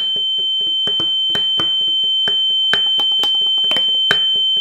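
Snare drum played with wooden sticks in a double paradiddle with two accents: quick strokes, several a second, with the accented ones clearly louder. A loud, steady high-pitched electronic tone sounds under the whole pattern.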